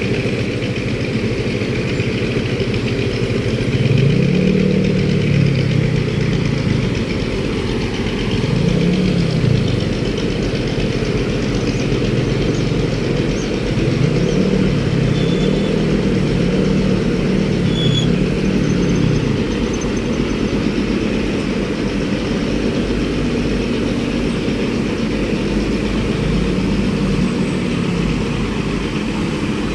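Street traffic: vehicle engines running steadily, with engines rising and falling in pitch several times over a constant low rumble.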